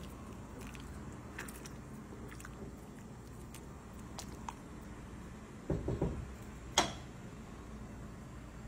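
A silicone spatula stirring rice cooking in broth in a frying pan: soft wet stirring, a few dull knocks about six seconds in, then one sharp tap against the pan.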